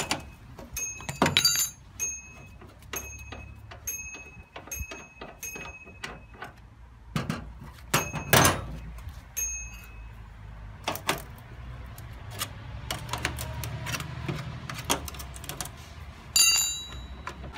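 A metal spanner clinking in quick, repeated strokes on a washing machine's foot bolt as the feet are unscrewed, each click ringing briefly. Later come a few heavier knocks on the machine's metal body and a bright metallic clang near the end.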